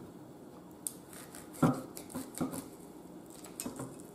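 Knife and fork cutting a T-bone steak in a bowl, with a few short scrapes and clinks of metal on the bowl; the loudest comes about a second and a half in.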